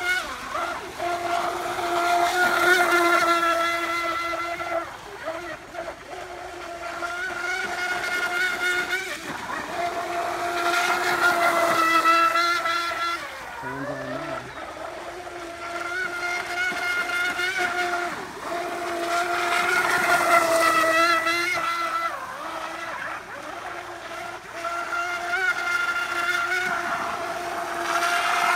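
High-pitched whine of a Miss Geico V2 RC catamaran's TP4050 brushless electric motor, run by a Castle Mamba Monster ESC on 4S lipo, as the boat runs laps at full speed. The steady whine swells and fades as the boat passes, loudest about three, twelve and twenty seconds in.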